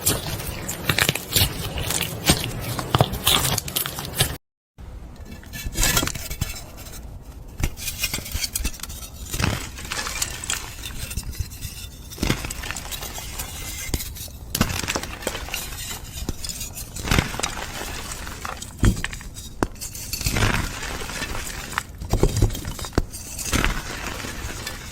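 Containers clinking and tapping, with scraping between the sharp clicks, as slime jars are handled. A brief dead-silent gap comes about four seconds in.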